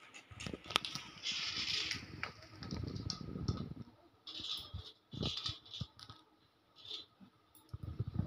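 Fried puti fish pieces being dropped by hand from a brass plate into a steel pan of gravy, with several short spells of light metallic clinking and rattling and a few sharp clicks.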